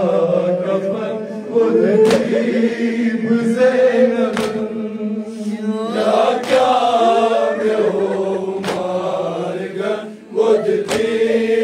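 Men chanting a Kashmiri noha, a Shia lament, in unison, punctuated by sharp slaps of hands striking chests (matam) about every two seconds.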